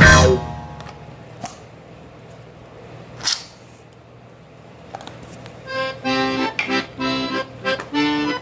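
Background music: a track fades out at the start, and after a few seconds of quiet with a few soft clicks, an accordion tune begins about two-thirds of the way in.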